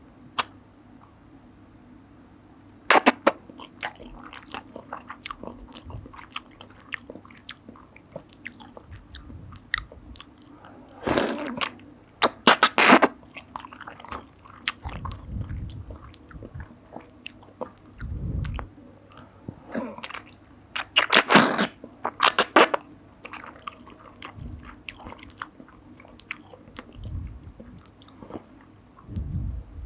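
Close-miked eating of soup noodles: soft, wet chewing throughout, broken by loud slurps, once about three seconds in, a cluster around the middle and another pair about two-thirds through.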